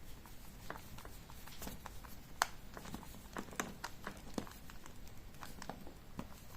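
Faint, irregular small clicks and taps of a screwdriver working against a plastic extension-cable plug housing, as its screw is put back in.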